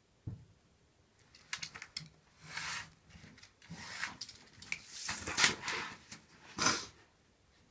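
Utility knife blade drawn along a straightedge, slicing through the silk and paper edge of a mounted painting in several scratchy strokes of varying length, with a light knock near the start.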